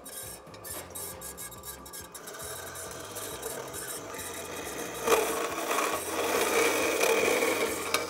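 JET vertical bandsaw cutting a metal tube to length, the blade rasping through the metal. The cut gets suddenly louder about five seconds in.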